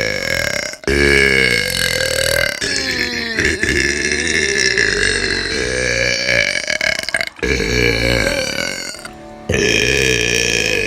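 A woman burping: several long, drawn-out belches back to back, each low and wavering in pitch, with short breaks between them.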